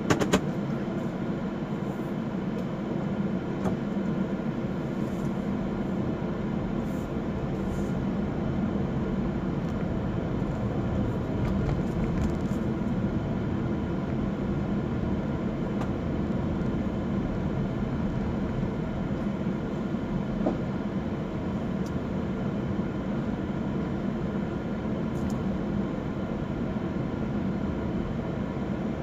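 Steady engine and road drone heard inside a moving car's cabin, with a couple of light knocks right at the start.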